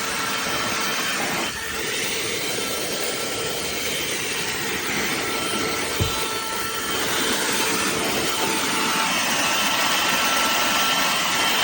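BSRCO cordless handheld vacuum running steadily, its motor giving a loud rushing noise with a few held whistling tones, and one sharp knock about halfway through.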